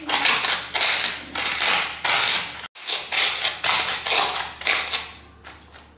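Fried gond (edible gum) puffs being crushed under a steel bowl pressed on a steel plate: repeated crunching, scraping strokes, about one and a half a second, thinning out near the end.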